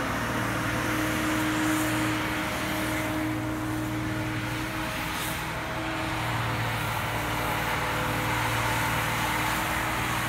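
Diesel engine of a John Deere 892D LC tracked log processor running steadily under hydraulic load as it swings its Waratah processing head, with a constant low hum. The engine note eases briefly around the middle, then comes back up.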